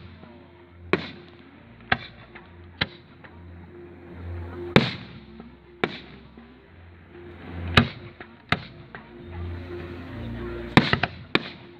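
Aerial firework shells bursting overhead: about ten sharp bangs at uneven intervals, the loudest near the middle, with a quick cluster of three near the end.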